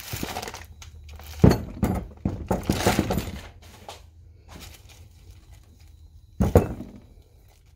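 Plastic bubble wrap crinkling and tearing as it is cut with scissors and pulled off a new electric starter motor. Two sharp thunks, about a second and a half in and again near the end, as the heavy starter is handled on the wooden workbench.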